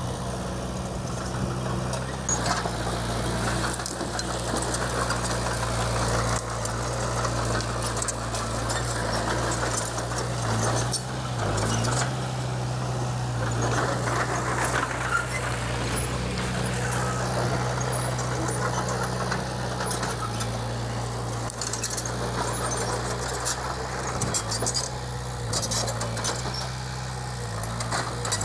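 Diesel engine of a Komatsu D20P bulldozer running steadily under load, its pitch dipping briefly about eleven seconds in and again near the end, with scattered clicks and rattles over a steady grinding noise.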